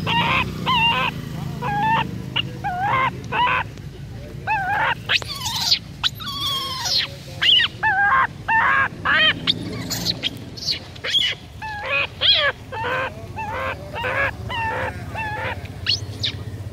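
Short, harsh animal calls repeating one to three times a second, each bending in pitch, over a low steady hum.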